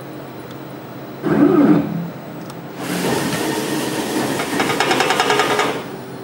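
Bridge laser's head being driven along its gantry: a short loud burst about a second in, then the motor-driven carriage running with a steady rushing noise for about three seconds, a fast rattle building in its later part before it stops.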